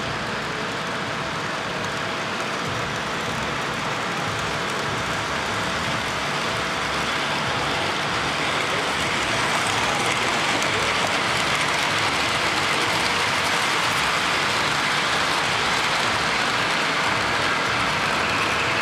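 Model freight train rolling past: a steady rushing of wheels and motors on the track that grows louder about halfway through as the diesel locomotives come by.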